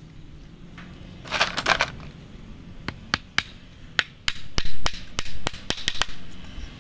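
A claw hammer driving a nail into a scrap-wood board: three light taps about three seconds in, then a quicker run of about ten sharp blows. Shortly before, a brief clinking rustle as nails are picked from a pile.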